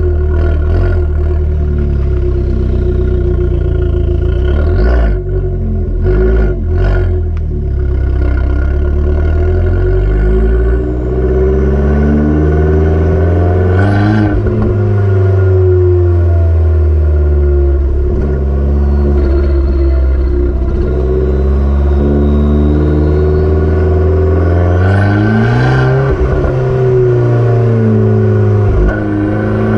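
Stock Abarth 595 Turismo's turbocharged 1.4-litre four-cylinder engine and exhaust while driving: steady running at first, then the note climbs under acceleration and falls away about halfway through, climbing and falling once more near the end.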